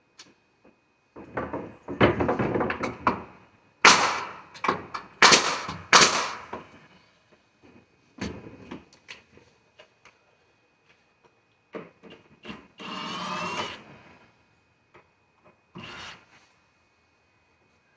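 Door-jamb installation work with a pneumatic nail gun: three loud, sharp shots about four to six seconds in, amid irregular knocks and rasping of wood and tools, and a longer scrape around thirteen seconds in.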